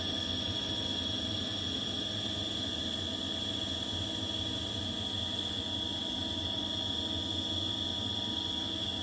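Circulation pump of a Seoul Master Gas 21 wall-mounted gas boiler running with a steady hum and a high tone through it. This is the characteristic sound of a failing pump whose rotor may catch on the fixed part and jam from time to time, which lets the heat exchanger boil and trips error A4.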